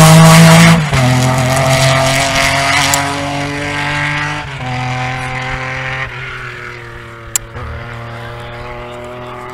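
Historic rally car's engine passing close at full throttle, then fading away across the field, its note breaking at each gear change as it pulls away.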